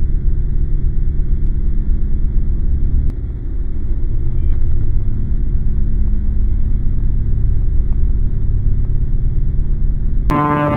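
A steady low rumble that shifts slightly about three seconds in, then cuts off abruptly near the end into a sustained droning tone with many overtones.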